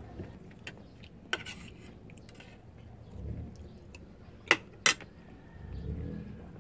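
Metal spoons clinking against plates and bowls while eating: a few sharp clinks, the two loudest close together about four and a half seconds in.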